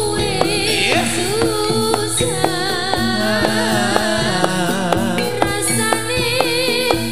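Javanese gamelan music accompanying a jathilan dance: a singer's wavering voice over struck metallophone notes, steady drum strokes and sustained tones.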